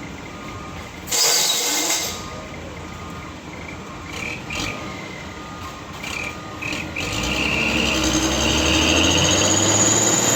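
Heavily loaded single-axle truck on a steep climb. There is a short, loud hiss about a second in, then from about seven seconds the engine's low drone builds under load with a high-pitched squeal over it.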